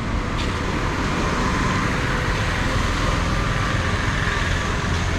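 Road traffic noise: a steady rush of vehicles on the road, swelling slightly in the middle.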